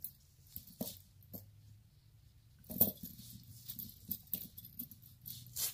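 Faint scattered clicks and soft rustles of a gold-tone chain necklace with enamel flower links being moved about on a cloth, with one sharper click a little under three seconds in.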